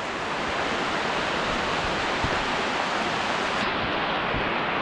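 Heavy rain falling on dense jungle foliage, a steady hiss of downpour.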